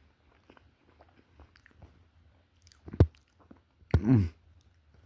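Person chewing a bite of chocolate donut with nuts, with soft scattered mouth clicks. A sharp knock comes about three seconds in, and about a second later a louder brief sound falling in pitch.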